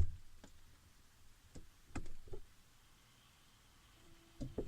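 Mostly quiet and muffled, as from inside a closed refrigerator, with a few faint clicks and knocks about one and a half to two and a half seconds in and a sharper knock just before the end.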